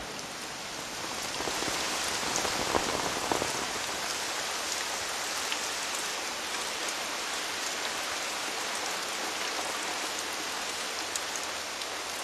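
Heavy rain falling, a steady hiss with a few sharper drop taps, somewhat louder in the first few seconds.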